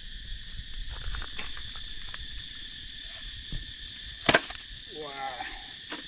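A knife cutting into a whole watermelon, with small cracking clicks and one loud, sharp crack about four seconds in as the rind splits open. Insects drone steadily in the background.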